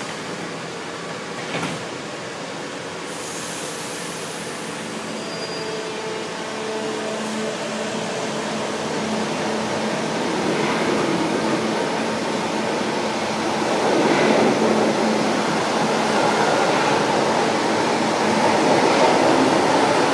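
São Paulo Metro Line 1 train moving along the platform: a steady rumble of wheels and traction equipment with faint humming tones, growing steadily louder.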